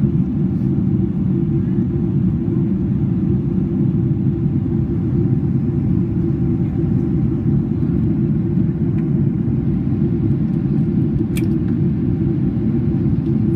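Steady low rumble of jet engine and airflow noise heard inside an airliner cabin as the plane climbs after takeoff.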